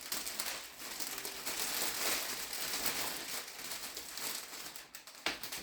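Wrapping material crinkling as it is handled and pressed into place, with one sharp tap about five seconds in.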